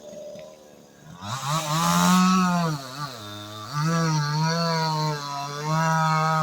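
Vevor 62cc two-stroke chainsaw with a 20-inch bar, throttled up hard about a second in, then running at high revs with two brief drops back in speed.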